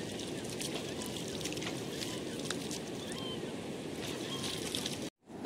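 Muddy floodwater of a wadi in spate rushing past steadily, with small splashes as a hand dips into and flicks the water at the edge. The sound drops out abruptly just before the end.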